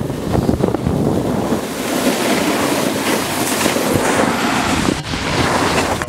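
Steady wind rush on the microphone, mixed with the hiss of a board sliding over packed snow. The level dips briefly about five seconds in.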